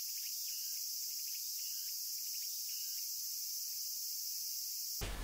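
Outdoor insect chorus: a steady, high-pitched shrilling that does not vary, with a few faint short chirps underneath.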